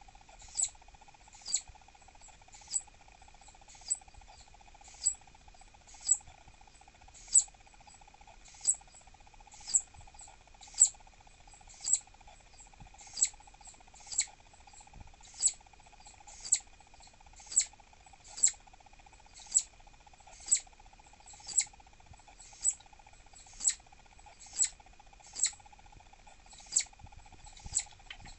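Southern flying squirrel giving short, high chirps about once a second, each a quick downward sweep: its irritated, annoyed call.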